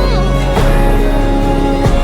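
Background music with steady held chords, a deep bass and a regular beat.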